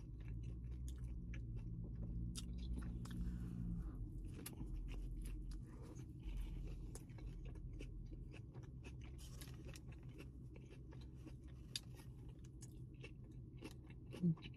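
Close-up chewing of a turkey and provolone sub sandwich: soft, wet mouth clicks and smacks while eating.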